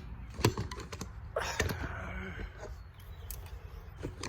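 Utility knife blade scraping leftover paint out of a metal door hinge, with light clicks and taps of blade and hinge and a longer scrape about a second and a half in.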